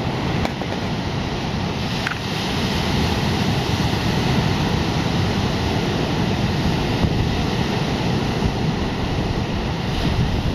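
Ocean surf breaking and washing onto a sandy beach, a steady rushing noise, with wind buffeting the microphone and adding a low rumble.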